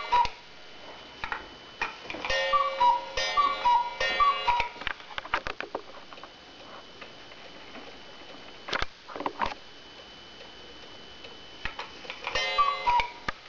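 Sternreiter cuckoo clock striking: its bellows-driven wooden whistles give the falling two-note cuckoo call three times in a row, each with a ringing gong strike, the hour count for three o'clock. The pendulum movement ticks in between, and a single call with its gong strike comes again near the end.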